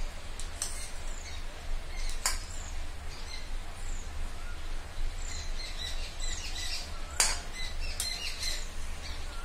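Small birds chirping repeatedly in short high calls, busier in the second half. Two sharp metallic clinks, about two seconds in and, louder, about seven seconds in, from a steel spoon against the small steel oil bowl. A steady low hum runs underneath.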